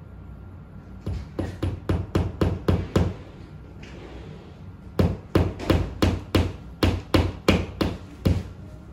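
Hammer tapping a nail-in OOK picture hook into a wall: a quick run of light, even strikes, about four to five a second, for about two seconds, then a pause of about two seconds and a second, longer run of strikes.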